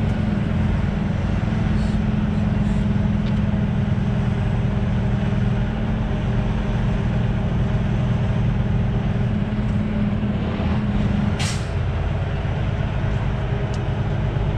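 Semi truck's diesel engine running steadily, heard inside the cab as the truck moves slowly. About eleven seconds in there is a short, sharp hiss of air from the air brakes, and the engine note drops just after.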